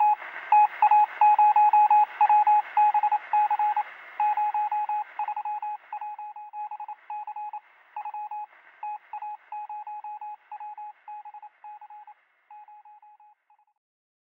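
Morse code: a single high beep tone keyed on and off in rapid short and long pulses, fading gradually and stopping near the end.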